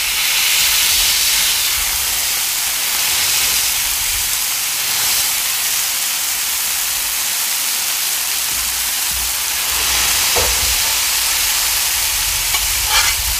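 Smash-burger patties and potato wedges sizzling on a Blackstone flat-top griddle on high heat: a steady frying hiss.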